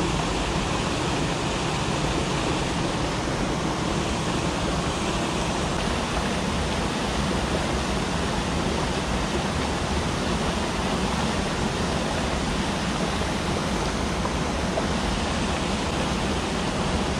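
Stream water pouring over a low concrete weir into the pool below, a steady even rush that does not change.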